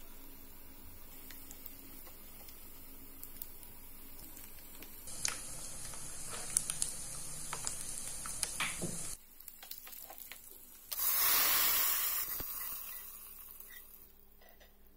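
Sliced almonds, cashews and raisins sizzling in hot fat in a pan, a steady hiss with scattered small pops. After a sudden break, a loud burst of sizzling starts about 11 seconds in and fades over a few seconds as the hot fried nuts are added to the moong dal harira.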